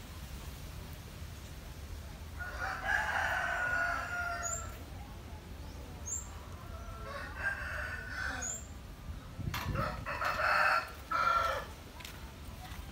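Roosters crowing: three crows a few seconds apart, each lasting a second or two.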